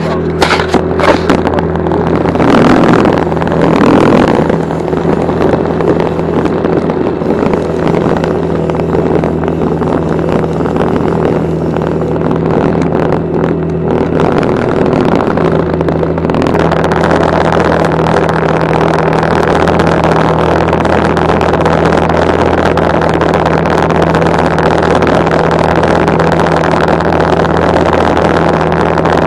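Small outboard motor running steadily at trolling speed, a constant hum, heard from aboard the aluminium john boat. Several sharp knocks and rattles come in the first few seconds.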